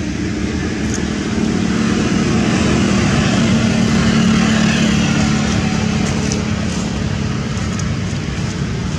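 Steady motor-vehicle engine and road noise, a low hum under a hiss, swelling a little around the middle and easing off.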